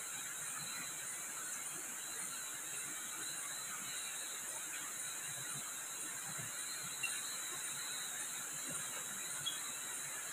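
A steady, shrill chorus of night insects, with a faint chirp pulsing at an even pace. Two small soft knocks come about two-thirds of the way in and near the end.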